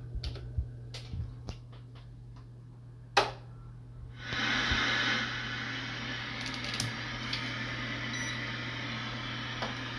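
Light clicks of a plug being handled, then a sharp switch click, then about a second later the 1980 Semp Max Color TV comes on with a steady hiss of static from its speaker. A low mains hum runs underneath throughout.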